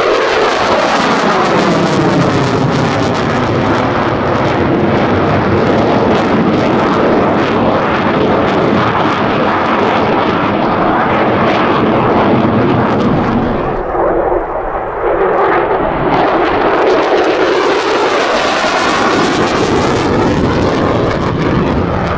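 F-16 fighter jet's engine giving an ear-splitting roar as it flies overhead, with a whooshing, phasing sweep as it passes and turns. The roar dips briefly a little past halfway, then swells again.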